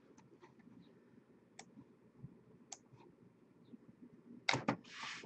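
Hands handling a sealed cardboard box of baseball cards: a few faint clicks, then a short burst of rustling and knocks about four and a half seconds in.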